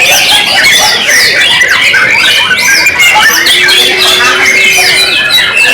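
Several white-rumped shamas (murai batu) singing at once, a loud, dense, unbroken tangle of quick whistles, trills and chirps with no pauses.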